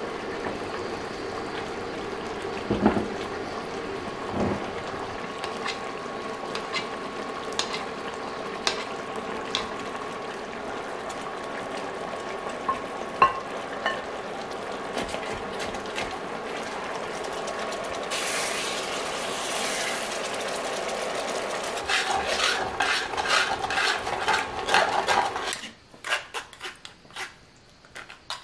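Lid and utensils knocking and clinking against an enamelled cast-iron Dutch oven as braised ribs are lifted out, over a steady hum and the sauce simmering. Near the end the sound drops abruptly to a spoon scraping and tapping in a metal sieve over a bowl.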